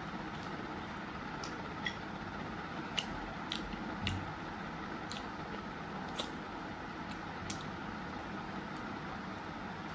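Eating by hand: chewing a mouthful of rice and roast pork, with a few short, sharp clicks scattered through, over a steady background hiss.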